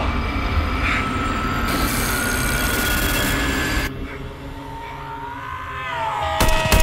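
Dense dramatic sound effects: a low rumble with a high screeching layer over it. The screech cuts off about four seconds in, then gliding tones rise and sharp clicks come near the end.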